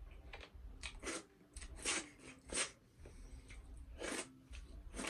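A person eating boiled pork trotter by hand: chewing with about six wet lip smacks and slurps spread through the few seconds, as the fingers are sucked clean of meat and juice.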